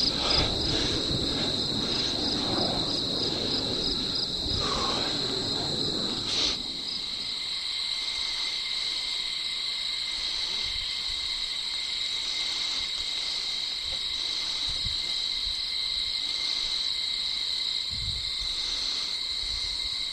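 Steady chorus of crickets, a continuous high-pitched trilling. For the first six seconds or so there is also a rustling noise close by, which then stops.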